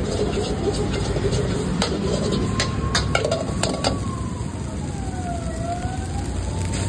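Steady rush of a high-flame gas wok burner as fried rice is stir-fried, with a metal ladle clanking against the steel wok in a quick cluster of sharp strikes in the middle.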